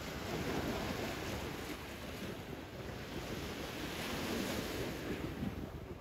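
Small waves breaking and washing up on a sandy shore, the wash swelling and easing in surges, with wind rumbling on the microphone.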